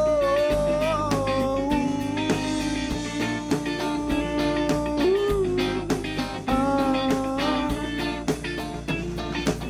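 Live rock band playing an instrumental break: a lead guitar line of held, bending notes over bass and drums.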